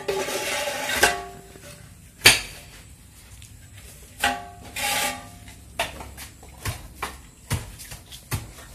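Scraping and knocking of hand tools in a metal basin and steel block mould as sand-cement mix for concrete blocks is scooped and packed by hand, with a run of short sharp knocks in the second half.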